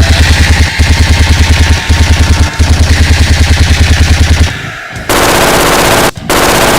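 Automatic machine-gun fire, about nine shots a second, in three bursts with short breaks, stopping about four and a half seconds in. A dense rushing noise follows.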